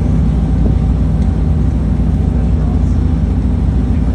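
Ferry underway: the engine's steady low drone, with a rushing noise of wind and water over it.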